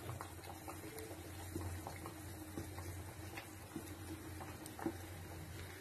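Coconut-masala curry gravy bubbling faintly at a boil in a frying pan, with soft scattered pops and plops as peeled small onions are dropped in one at a time.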